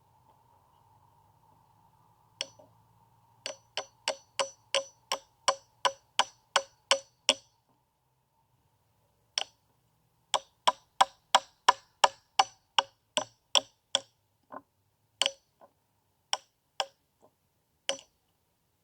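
Hammer blows struck in steady runs of about three a second, each a sharp ringing strike, with a pause midway and a few spaced blows near the end.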